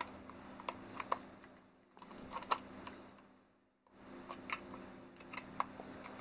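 Scattered small plastic clicks and taps as a clear gimbal protector is fitted by hand over a DJI Mavic Pro drone's camera, with a short pause a little before four seconds in.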